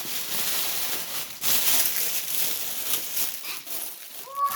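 Packaging being unwrapped by hand: wrapping and tape crinkling and rustling in uneven bursts.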